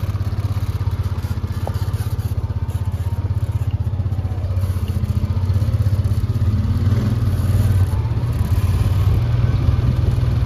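ATV (quad bike) engine running at low speed with a steady low throb, growing a little louder about two-thirds of the way through.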